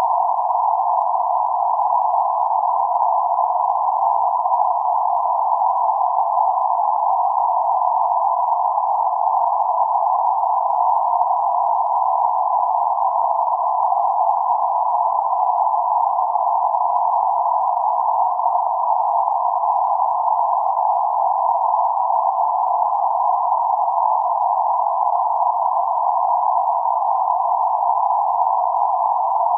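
Steady band-limited noise centred around 848 Hz, a constant hiss held to a narrow band between roughly 550 Hz and 1.4 kHz with nothing above or below it, unchanging throughout.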